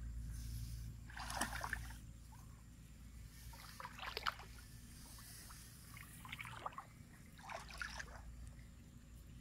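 Shallow muddy water in a flooded rice paddy splashing and dripping as a gill net is drawn up out of it, in four separate splashes a couple of seconds apart over a low steady rumble.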